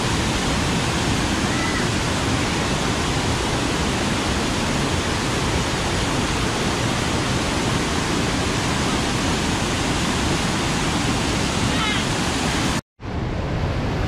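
Rain-swollen waterfall cascades and rapids rushing over boulders: a loud, steady wash of fast, strong water. It breaks off suddenly about a second before the end, and a fainter rush of water follows.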